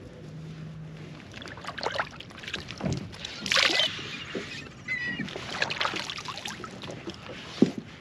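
Handling noises from small mackerel being wiped with a paper towel on a wooden cutting board: irregular rustling and light knocks, loudest about halfway through, with a sharp tap near the end.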